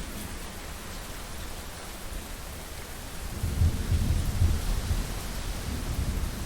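Steady rain falling, with a low rumble of thunder that swells about three seconds in and dies away near the end.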